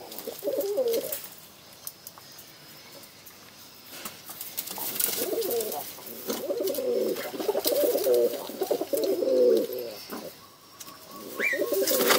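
Domestic pigeon cooing: a short bout at the start, then a longer run of throaty, wavering coos from about five to ten seconds in, and more near the end.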